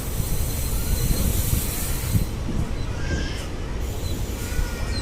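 Passenger train running on rails, heard from on board a coach: a steady low rumble of the wheels with some wheel squeal, and a high hiss that drops away about two seconds in.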